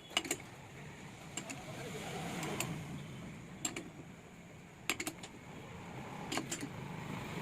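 Scattered sharp metal clinks of tools and engine parts being handled, about eight at irregular intervals, over a background hum of passing road traffic that swells twice.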